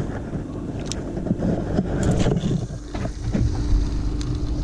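Wind on the microphone and water noise around a small fishing boat, a steady low rumble, with a few light clicks and knocks about one, two and four seconds in.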